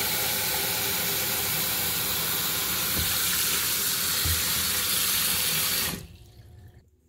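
Bathroom sink faucet running, its stream of hot water splashing into a small plastic tub as it fills. The flow cuts off suddenly about six seconds in.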